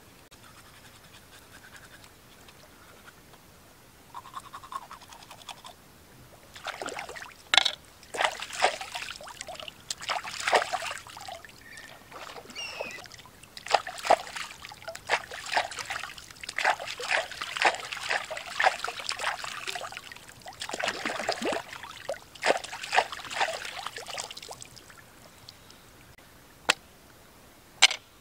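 Hands sloshing and splashing in shallow river water while rinsing a gutted fish: irregular splashes for most of the stretch, starting several seconds in. Two short sharp clicks near the end.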